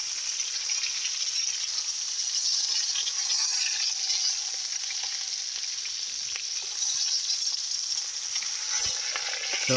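Venison backstrap frying in butter and oil in a pan: a steady sizzle with a few faint crackles.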